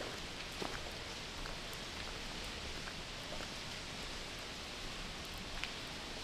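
Steady hiss of rain and water pouring into the derelict building, with a few faint clicks.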